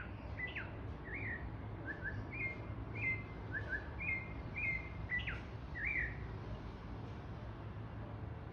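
A bird singing a varied phrase of short whistled notes, some sliding, some held briefly, about a dozen in the first six seconds, then falling silent. A steady low rumble runs underneath.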